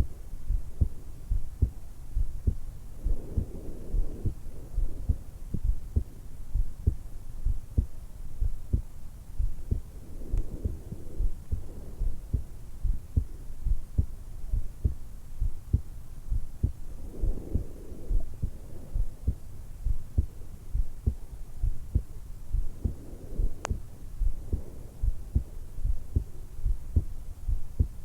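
A woman's heartbeat and breathing picked up by a stethoscope microphone pressed to the hollow at the base of her throat, at rest just after waking: a steady run of low heart thumps, with slow breaths swelling in every six or seven seconds. A single sharp click sounds near the end.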